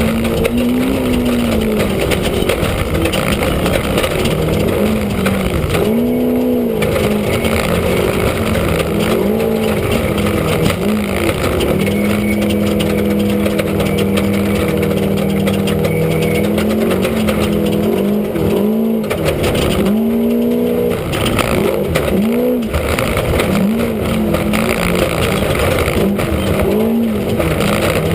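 Off-road race vehicle's engine heard from inside the cockpit, its revs climbing and dropping again and again as it races, held high and steady for several seconds around the middle, over a constant loud rush of noise.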